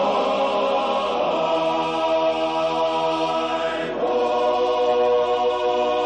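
Background music of sustained, choir-like chords, shifting to a new chord about four seconds in.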